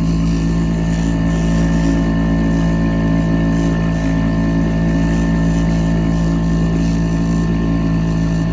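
A boat motor running at a constant, even speed, a loud, steady drone that holds one pitch throughout.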